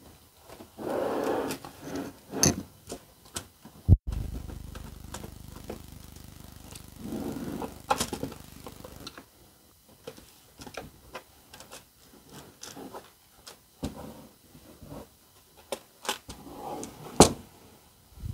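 Handling sounds of an MDF circle being positioned on a lazy susan: short scrapes of the board shifting, with scattered clicks and taps. There is a sharp knock about four seconds in and a louder one near the end.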